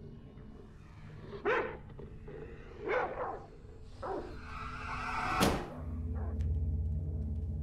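Horror-film sound design: three short, rough noises about a second and a half apart, then a rising hiss that ends in a sharp hit, followed by a low pulsing rumble.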